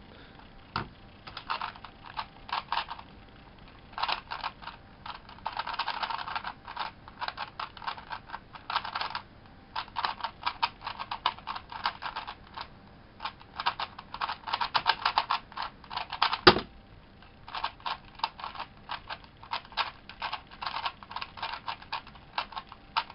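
Rubik's Cube 2.0 prototype being speed-solved: rapid plastic clicking of the layers turning, in quick bursts with brief pauses. One louder thump about two-thirds of the way through.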